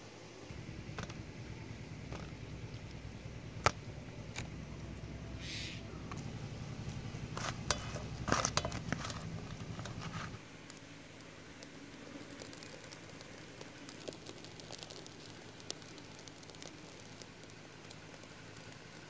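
A small fire of dry twigs, kindled with a burning plastic packet, crackling faintly with fine snaps. Before it there are rustling, sharp clicks and a short cluster of knocks over a steady low rumble that stops abruptly about halfway.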